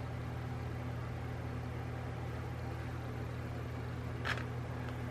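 Steady low background hum, like a fan or appliance running, with one short light tap about four seconds in.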